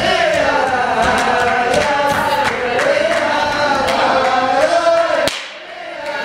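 A group of men singing together in a large room while dancing in a circle. About five seconds in the singing breaks off with a click and a short drop in level, then resumes.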